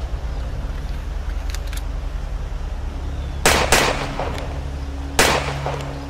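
Three pistol shots, two in quick succession about three and a half seconds in and a third about a second and a half later, each with a short ringing tail, over a steady low hum.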